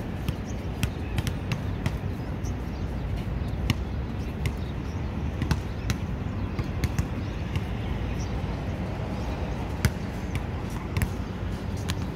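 Basketball bouncing on an outdoor hard court during a pickup game, a string of sharp thuds at irregular intervals over steady low background noise.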